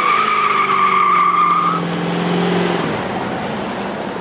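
1971 Plymouth 'Cuda's 440 Six Pack V8 revving hard while the rear tyres spin and give a high, steady squeal. The squeal stops about two seconds in, and the engine keeps running, fading as the car pulls away.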